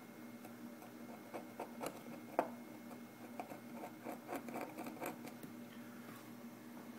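Old double-sided tape being scraped and peeled off iPod Touch 4G parts by hand: irregular small scratches and clicks, with a sharper tick about two and a half seconds in.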